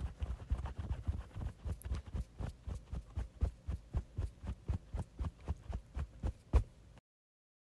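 Galloping hoofbeat sound effect: a steady run of low thuds, about four a second, ending in one louder thud and then cutting off to silence near the end.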